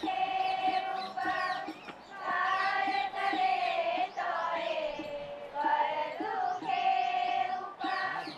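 A melody sung or chanted in long held notes, each lasting about a second, sliding up or down between notes with short breaks.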